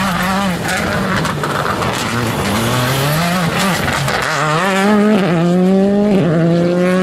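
Race car engine at full throttle. Its note rises and falls through the first half, then climbs in steep rising sweeps, dropping back sharply at upshifts about two-thirds of the way through and again near the end.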